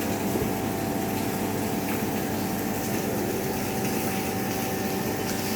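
Steady mechanical hum with several held tones, with a couple of faint knife taps on a chopping board.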